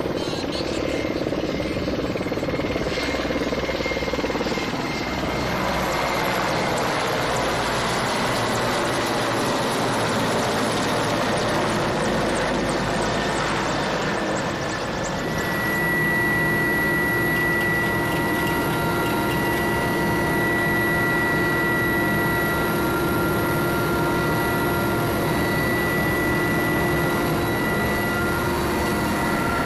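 Mil Mi-8 helicopters flying past low, their rotors and turbines making a loud, steady rushing noise. About halfway through this gives way to the sound inside a Mi-8's cabin in flight: a steady turbine whine with several constant high tones over the rotor noise.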